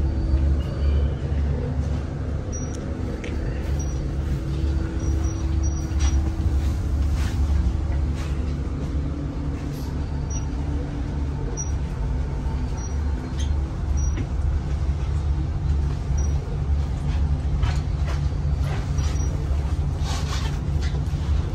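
Steady low rumble of a box truck's engine idling, heard from inside the passenger compartment, with a few light clicks and knocks.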